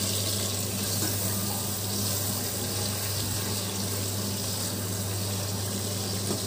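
Spice paste with oil and a little water bubbling and sizzling in an aluminium pot as it is stirred with a spoon, a steady hiss over a low hum: the masala being fried down for biryani.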